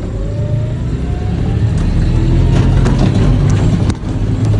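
Heavy-equipment engine running steadily under load, with a faint rising whine in the first second and scattered metallic clicks and clanks, during an attempt to bump-start a dead skid steer by tugging it so its hydraulics turn the engine over. The dead engine does not fire.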